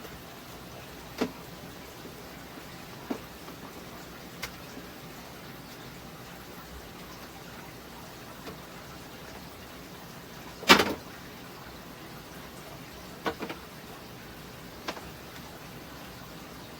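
Bottles and jars being set down and shifted on refrigerator shelves: about half a dozen short knocks spread out, the loudest a little past the middle, over a steady low hiss.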